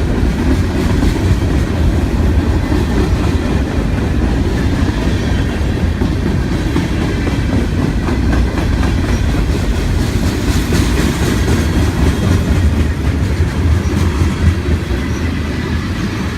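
Freight train cars rolling past on the rails, a steady low rumble that eases slightly near the end.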